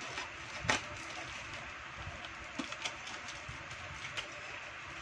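Hands picking at and peeling packing tape on a cardboard box, with a sharp crackle about a second in and a few smaller taps and crinkles later, over a steady background hiss.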